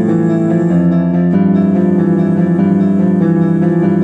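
Music played on a keyboard, a piano-like sound, in held chords that change about once a second.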